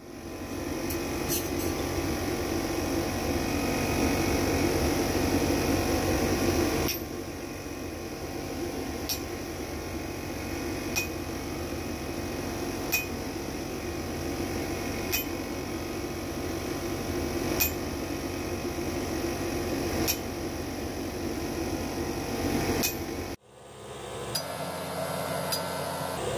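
Hammer blows on a spring-steel razor blank on an anvil, a sharp clink roughly every two seconds, over a steady rushing noise that drops in level abruptly about seven seconds in.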